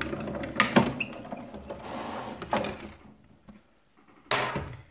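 Press Boss hand-cranked die-cutting and embossing machine being turned, cutting plates and a thin metal die with 300 gsm cardstock rolling through the rollers: two clicks, then a grinding rumble for about two seconds that stops. A short scrape follows near the end.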